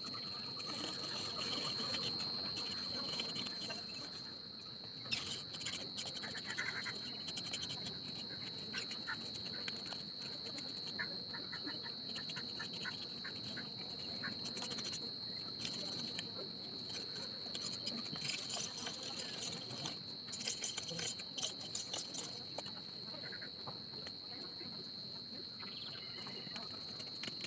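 Bamboo cane being split and shaved into thin strips: irregular cracks, clicks and scraping, in clusters with pauses between. Under it a steady high-pitched insect buzz.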